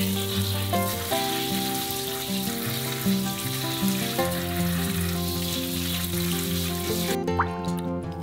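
Tap water running onto parboiled chicken pieces in a stainless steel mesh colander while gloved hands rub them clean, with background music. The water sound cuts off about seven seconds in.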